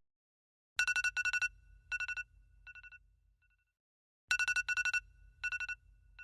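Electronic phone ringtone: rapid trilling beeps in short groups that fade away. It starts just under a second in and plays again about three and a half seconds later.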